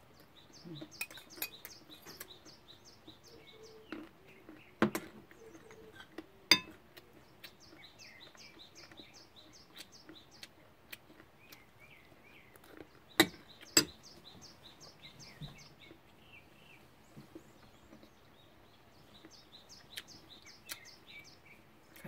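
Birds chirping in repeated runs of quick high notes, with a metal spoon clinking sharply against a glass cup a few times: about five seconds in, again a second and a half later, and twice in quick succession about thirteen seconds in.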